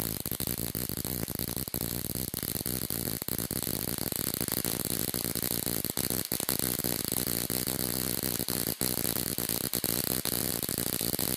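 Ruhmkorff induction coil running: its make-and-break interrupter buzzing steadily while a high-voltage spark arc crackles across the gap between its two pointed brass electrodes.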